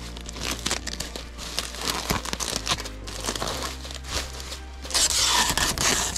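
Bubble wrap crinkling and rustling as hands wrap it around a camera. A strip of clear packing tape is pulled off a tape dispenser and torn near the end.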